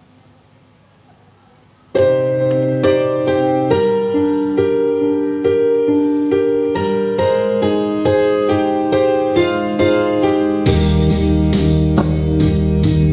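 Faint room noise, then a keyboard piano starts about two seconds in, playing a slow sequence of held chords and single notes. About three seconds before the end, bass and a steady drum beat join the piano.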